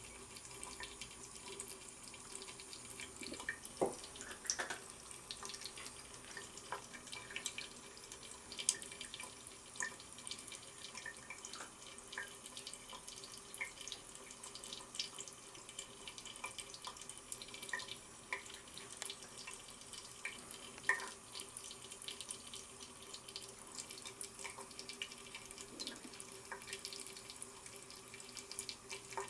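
Thin stream of water running from a tap into a sink, a steady trickle with irregular small splashes and drips as a cat paws and bites at the stream. A few soft knocks, near the start and about two-thirds through.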